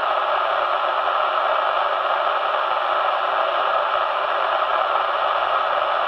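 Midland 203 CB radio hissing steadily through its loudspeaker: the receiver's own noise with the antenna disconnected and the squelch turned off.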